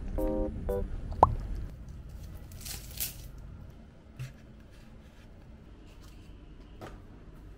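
Guitar music ends in the first second. About three seconds in comes a short crinkly, tearing scrape as a straw is pushed into a paper drink carton, followed by a soft thud and a faint click of handling on a desk.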